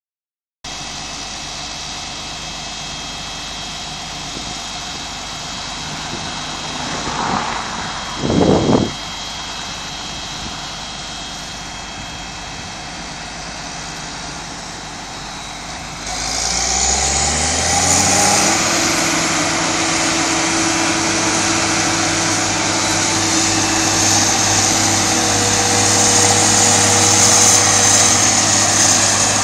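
Claas forage harvester and John Deere 6860 tractor running steadily while harvesting maize, with a brief loud rush about eight seconds in. About halfway through the engine note rises and grows louder, and the machine then runs on at the higher pitch with a strong hiss from the chopping.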